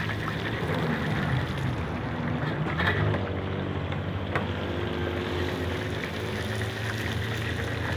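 Battered trout pieces deep-frying in a large karahi of hot oil: a steady sizzle with a low steady hum underneath. There are a couple of short knocks, about three and four and a half seconds in.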